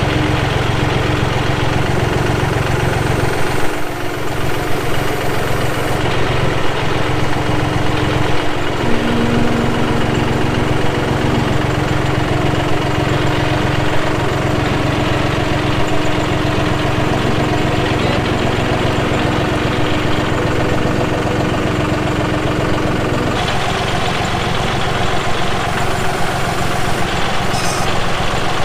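Engine running steadily at constant speed, with a shift in its hum about 23 seconds in.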